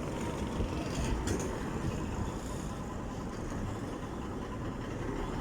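Road traffic going by: a steady low rumble of motorcycle and vehicle engines and tyres.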